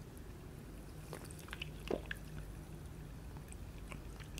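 Soft sips and swallows of cola drunk from a can, with faint mouth clicks and a slightly louder gulp about two seconds in.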